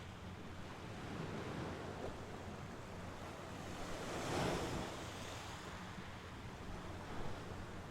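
Mediterranean Sea waves washing onto the shore, one wave swelling loudest about halfway through and easing off again.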